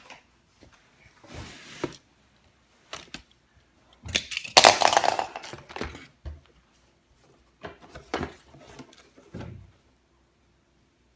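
Plastic toy launcher set and its cardboard box being handled: a string of scattered knocks and clacks, with a louder, longer clatter of about two seconds near the middle.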